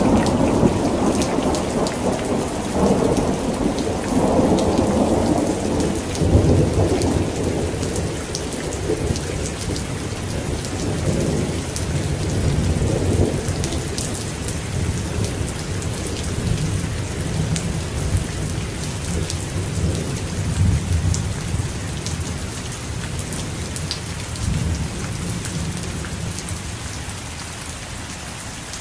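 Heavy rain falling steadily with rolling thunder rumbling through it, loudest in the first few seconds and fading away near the end, leaving only the rain.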